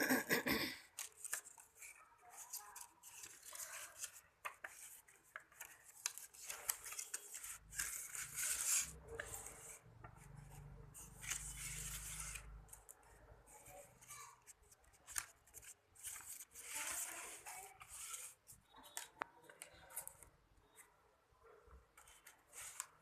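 Paper being cut with scissors and handled: irregular snips and rustles of paper, loudest about the first second, with a low rumble for several seconds midway.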